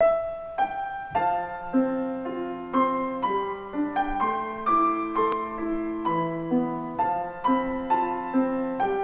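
Grand piano playing the introduction to a worship song: a melody over chords, notes struck about twice a second and left to ring.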